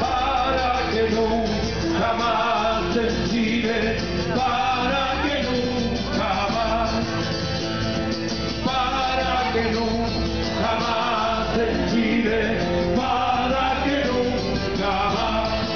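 Live band playing through stage loudspeakers: acoustic and electric guitars with a sung melody over them, steady and loud.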